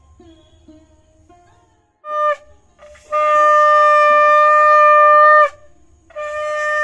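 Conch shell (shankha) blown at puja: a short blast about two seconds in, then a long steady note of about two and a half seconds that dips in pitch as it ends, and another note starting near the end.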